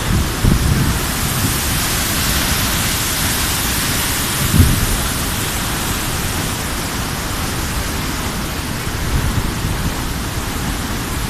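A waterfall's steady roar of falling water, a dense even rush, with a few brief low thumps, the strongest about four and a half seconds in.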